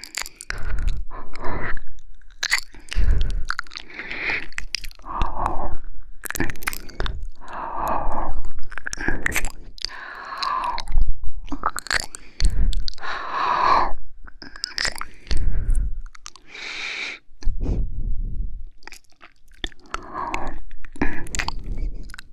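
Close-miked ASMR mouth sounds: slow, wet licking and kissing at the microphone, coming in separate bursts about once a second.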